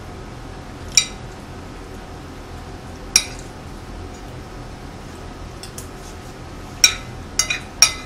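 Metal cutlery clinking against a ceramic plate: single clinks about one and three seconds in, then a quick run of several clinks near the end.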